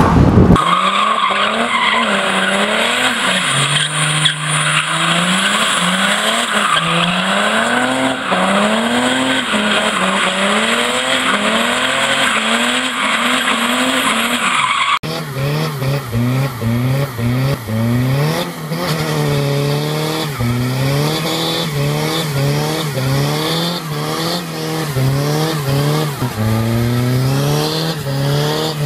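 Diesel car engines revved hard and let fall again over and over, about once a second, while the tyres spin and squeal in burnouts and donuts. About halfway through, one car's sound cuts to another's doing the same.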